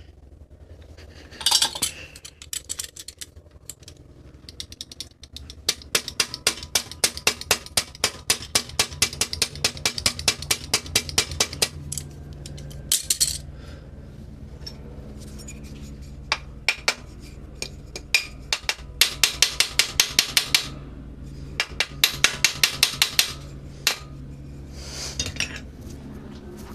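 Ratchet wrench clicking in runs of about three to four sharp metallic clicks a second, with pauses and a few single knocks between, over a low steady hum.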